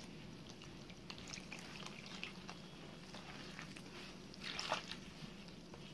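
Faint wet squishing and patting of a hand mixing warm water into a mound of flour, with a louder squelch about four and a half seconds in.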